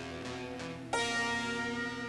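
Film score music: plucked notes repeating about three times a second over a held chord, then a new sustained chord coming in sharply about a second in.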